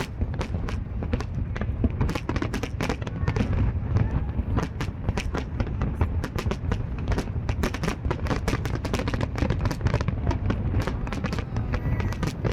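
Fireworks going off in quick succession: a dense run of sharp bangs and crackles, several a second, over a steady low rumble.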